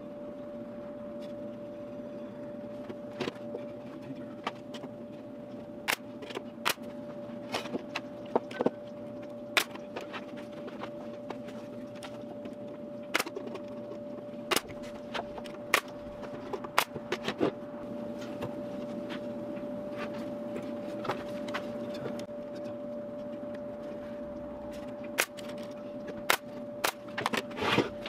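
Nails being driven into plywood shelf pieces during glue-up: sharp single clicks at irregular intervals, some in quick pairs, over a steady hum.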